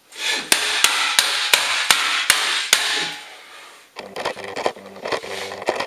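Hammer blows on a 100 Mbit network switch: about seven hard strikes in quick succession, roughly three a second, then lighter knocks. The switch survives the beating.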